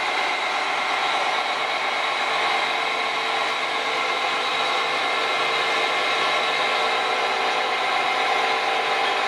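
Mobile crane's engine running steadily while it holds the turntable on its slings: a constant drone and hiss with no breaks, thin in the bass.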